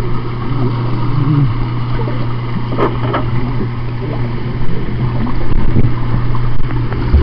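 Muffled underwater sound of a swimmer's arm strokes and kicks churning a pool, picked up by a camera held under water: a rushing wash of water and bubbles over a steady low hum, with a brief click about three seconds in.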